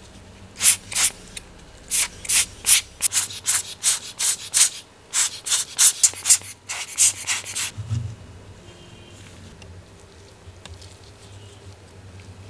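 A stiff brush scrubbing the brass plates of a 1970s Citizen wall clock movement in quick short strokes, about three a second, stopping about eight seconds in.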